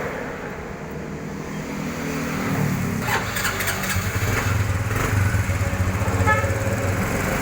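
Motorcycle engine idling steadily with an even low pulse, running smoothly after being worked on. A few brief higher-pitched sounds come over it about three to four seconds in.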